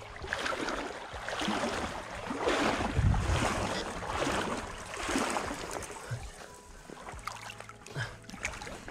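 Shallow river water sloshing and splashing close by, in repeated swells about once a second, loudest around three seconds in and quieter near the end.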